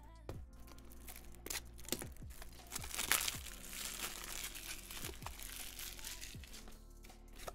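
A plastic trading-card pack wrapper crinkling and being torn open. The crinkling is busiest and loudest in the middle few seconds.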